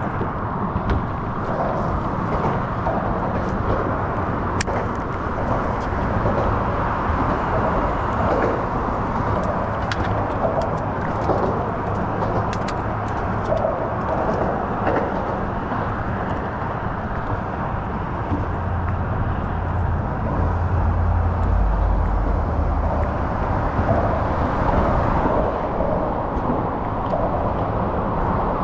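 Steady hum of road traffic crossing the causeway bridge, with a deeper low rumble swelling in for several seconds past the middle, as of a heavier vehicle, and a few small clicks.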